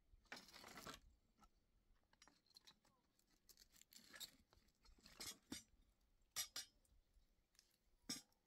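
Quiet, scattered sharp snaps and crackles of dry twigs in a small wood fire being tended by hand, with a short rustle of twigs being handled near the start.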